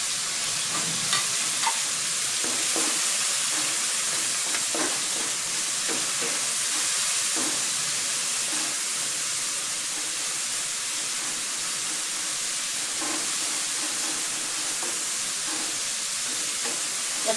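Shrimp and sliced pork sizzling in hot oil in a wok as they are stir-fried with a wooden spatula: a steady frying hiss with occasional faint strokes of the spatula.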